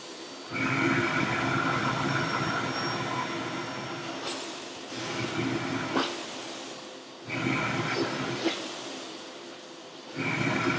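Vacuum cleaner running with a steady motor whine. It jumps up sharply in loudness three times: half a second in, about seven seconds in and near the end. A few short sharp knocks come in between.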